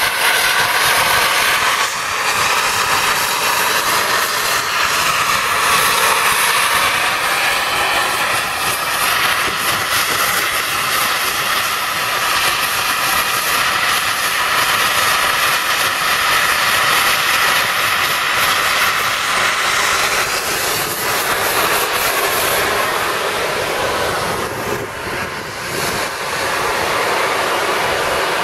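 Volcanic fumarole venting steam: a loud, steady hiss that dips briefly about 25 seconds in.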